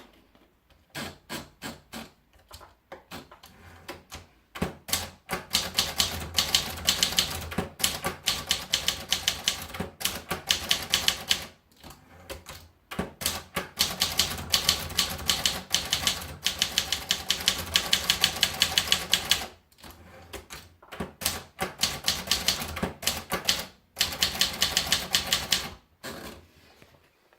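Contessa De Luxe manual typewriter being typed on: a few separate key strikes, then long runs of fast, even keystrokes broken by short pauses, slowing to scattered strikes near the end.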